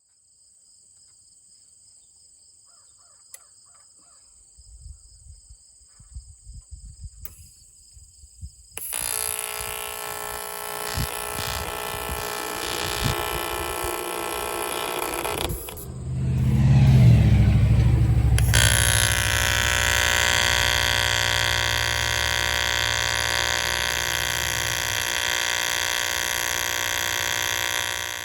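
TIG welding arc buzzing steadily, in two long stretches with a short break in between, with wind rumbling on the microphone. A loud gust of wind fills the break.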